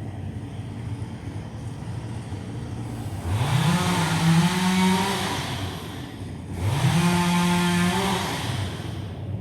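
Two-stroke chainsaw idling in the background, revved up twice to full throttle; each rev climbs quickly, holds for about two seconds, then drops back to idle.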